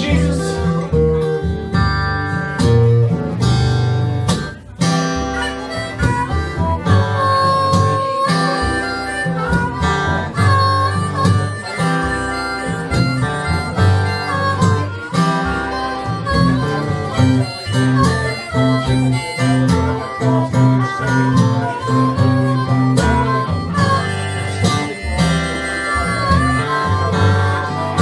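Acoustic blues band playing live: blues harmonica carries the melody over acoustic guitar. A few notes are bent near the end.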